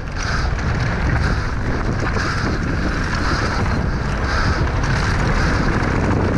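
Wind rushing over a helmet camera's microphone at speed, mixed with the rumble of mountain-bike tyres rolling over a dirt trail.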